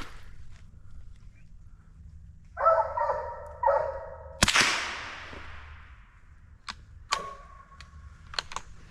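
Hounds barking twice, then a single gunshot crack with a long fading echo about four and a half seconds in. A few sharp clicks and a short high note follow.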